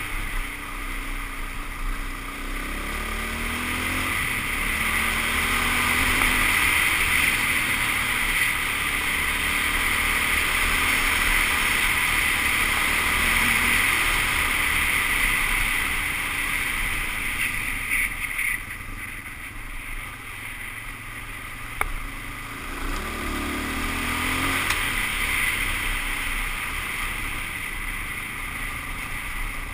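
Suzuki DR-Z400S dual-sport motorcycle's single-cylinder four-stroke engine running at speed under a steady rush of wind on the microphone. The engine rises in pitch as it accelerates early on, eases off about two-thirds of the way through, then rises again.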